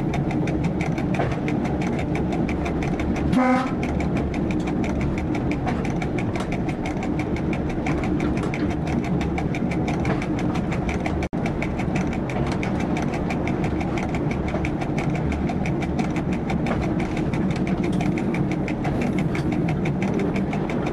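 Diesel railcar running steadily along the track, heard from inside the driver's cab, its engine drone mixed with rail noise. A short horn toot sounds about three and a half seconds in, and the sound drops out for an instant near the middle.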